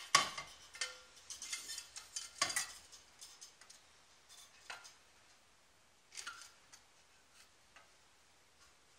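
Cold air intake pipe being handled and fitted into place: a series of light knocks and rattles, busiest in the first three seconds, with a couple more around five and six seconds in.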